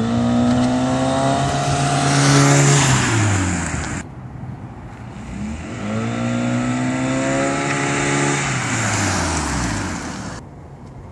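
Toyota Prius C's 1.5-litre four-cylinder engine, breathing through an Injen intake and Magnaflow exhaust, heard from outside as the car accelerates past twice. Each time it is a loud drone at a steady pitch that falls as the car goes by. The sound cuts off abruptly about four seconds in, and drops again near the end.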